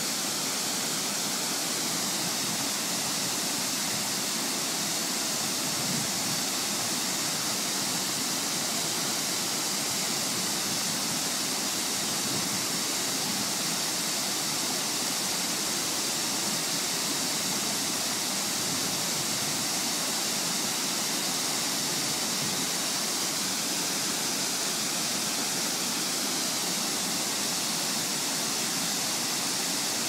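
Waterfall over a low concrete dam spillway and rock ledges, a steady, even rush of falling and tumbling water with no change throughout.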